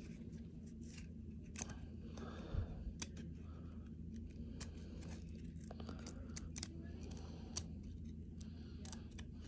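Baseball cards stuck together by a sticky coating being gently peeled apart one at a time: scattered faint clicks and ticks of card stock, a few louder, over a steady low hum.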